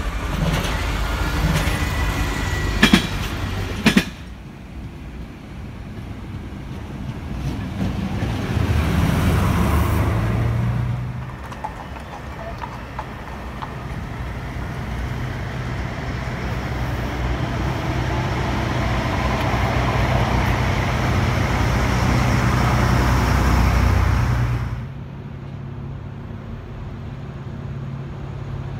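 Trains running past in several short clips, with rail and engine noise and two sharp clacks about three and four seconds in. In the later clips comes the steady low drone of diesel engines on yellow track-inspection and track-maintenance trains.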